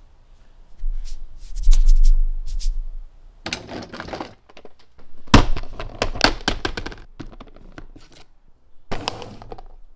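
Handling noise of a clear plastic marker case: a low dull bumping from about one to three seconds in, then sharp clicks and clatters of plastic marker barrels and caps knocking against each other and the case as it is picked up and a marker is pulled out, in three short spells.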